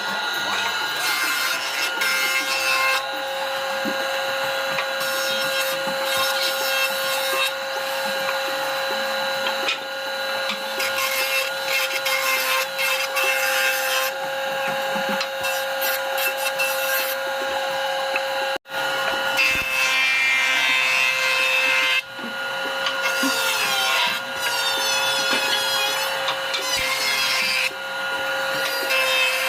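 Woodworking power machine running with a steady whine while cutting into hardwood, a rough sawing and rasping noise over the motor tone. The sound drops out abruptly for a moment about two-thirds of the way through.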